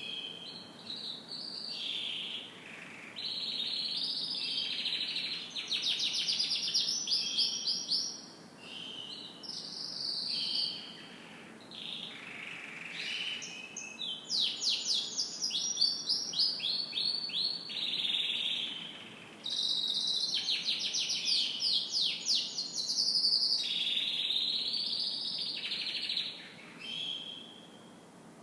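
Canary singing a long song of varied phrases: rapid trills of fast repeated notes alternating with steadier whistled passages, with short pauses between them.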